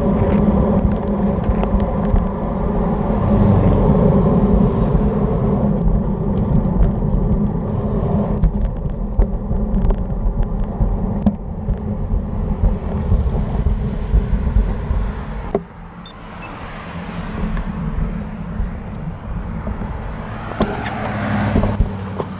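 Wind rushing over a handlebar-mounted camera and road bike tyres rumbling on the pavement at speed, with scattered sharp knocks from bumps in the surface. About 15 seconds in the noise drops off as the bike slows, and it swells again near the end as a car drives past.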